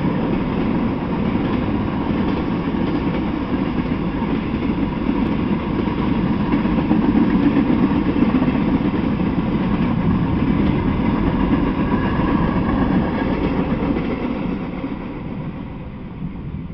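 Freight train of tank cars rolling past, a steady rumble of wheels on rail that fades away near the end as the last car clears.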